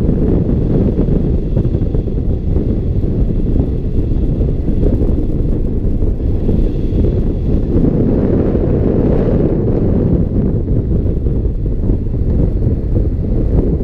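Steady, loud wind rushing over the microphone of a camera mounted on a hang glider's wing in flight, a deep even rumble without breaks.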